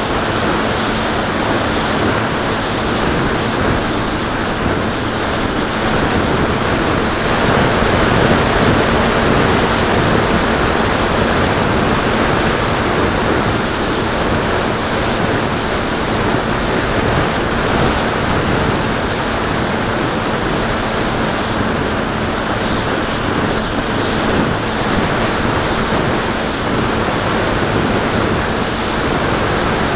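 Steady wind rush over an onboard camera on a Bixler 2 foam FPV plane in flight, with its electric motor and propeller running underneath as a faint steady tone.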